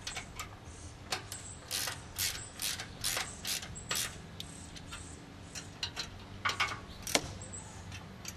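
Socket ratchet wrench with a 9/16 socket clicking in short, irregular strokes as it tightens bolts.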